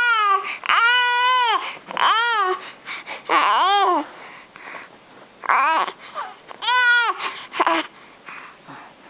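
A baby crying: about half a dozen short, high-pitched wails, each rising and then falling in pitch, with breaths between them.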